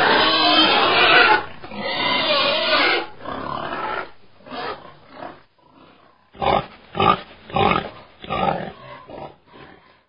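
Piglets squealing loudly as they are picked up by hand, a continuous scream that fades after about three seconds. Then a run of about six short squeals, roughly two a second.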